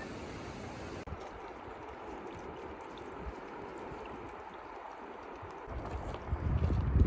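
Steady rushing of running water, with low rumbling wind buffeting the microphone in the last second or so.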